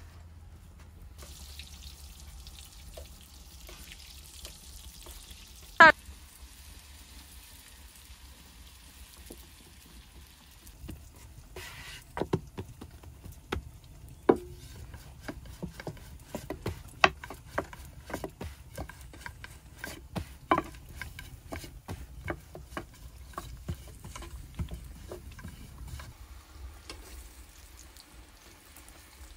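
Stirring in a cooking pot, a utensil knocking against its sides. There is one sharp ringing clank about six seconds in, then from about twelve seconds a long irregular run of clicks and knocks, one or two a second, that stops a few seconds before the end, over a low steady hum.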